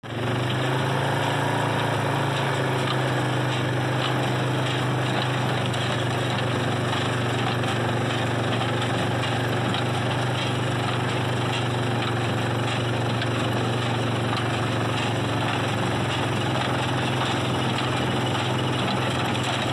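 Tractor engine running steadily as it pulls a New Holland small square baler that is baling hay, with the baler's mechanism working and the engine of a following ATV close by. A constant low hum under an even mechanical rattle.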